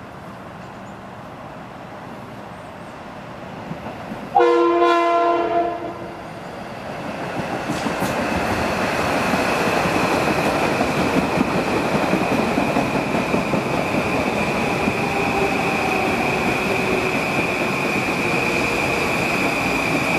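Metro-North M8 electric multiple-unit train sounding its horn once, for about a second and a half, about four seconds in. Its running noise then grows louder as it pulls in alongside the platform, with a steady high squeal joining in.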